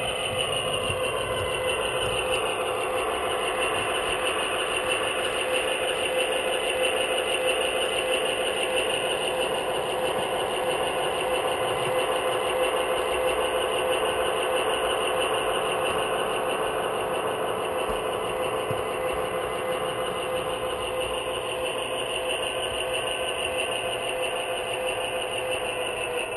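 HO-scale model diesel locomotive running along the track close to the microphone: a steady motor whine with the rattle of small wheels on rail joints.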